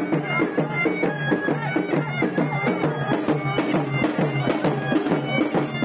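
Traditional procession music: a reed pipe plays a sliding melody over a steady drone and a fast, even drum beat.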